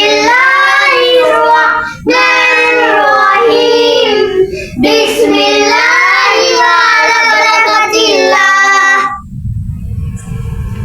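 A high, child-like voice singing a melody with long held, bending notes, as a music track; it stops about nine seconds in, leaving a low rumbling noise.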